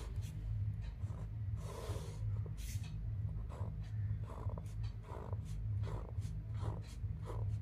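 Pen drawing lines on paper: a longer stroke near the start, then a run of short scratchy strokes about every half second to a second as the dividing lines are ruled. A steady low hum runs underneath.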